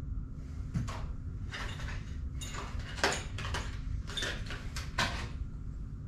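A drill bit and small metal tool parts being handled: a string of a dozen or so short clicks and scrapes between about one and five seconds in, over a steady low hum.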